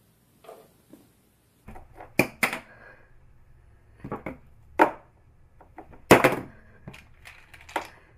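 Small objects knocking and clattering on a hard surface, several separate sharp knocks with the loudest about six seconds in, as a cat paws things off a table and they are set back down.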